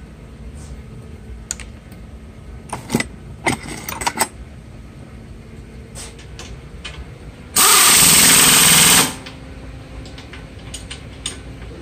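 A pneumatic impact wrench runs in one loud burst of about a second and a half, rattling a fastener tight on a car's front suspension. A few metallic tool clinks come before it.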